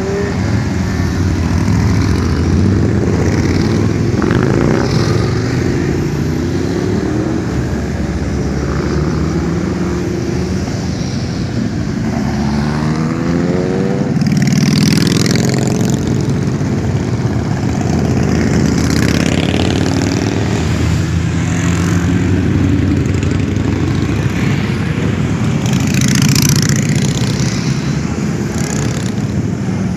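Motorcycles riding past one after another at low speed, their engines running together in a steady stream, with revs rising as bikes pull away. There are louder passes about halfway and again near the end.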